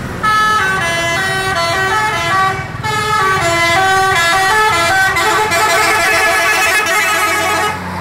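A bus's 'telolet' horn: a multi-tone air horn playing a quick tune of stepping notes, loud, with a brief break a little before three seconds in.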